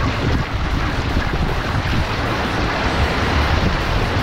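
Whitewater rapids rushing and churning around a wildwater canoe, with wind buffeting the microphone as a steady low rumble.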